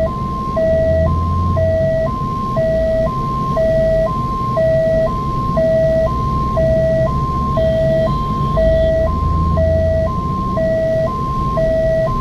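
Ambulance's electronic two-tone hi-lo siren, alternating steadily between a high and a low note about once a second, over the low rumble of the vehicle moving in traffic.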